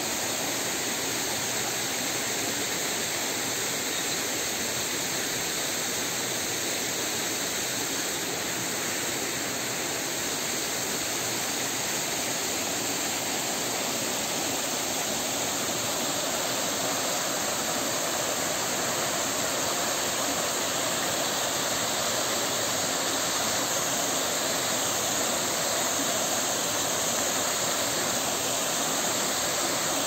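Mountain stream tumbling over rocks in small cascades: a steady rush of water, getting a little louder from about halfway through.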